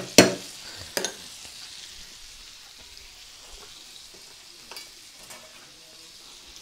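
Butter melting and sizzling in a nonstick frying pan: a quiet, steady frying hiss with scattered small crackles. In the first second there are a few sharp clicks as more pieces of butter drop into the pan.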